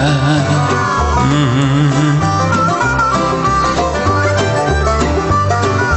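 Instrumental break in a folk-style song: plucked strings over a steady bass line.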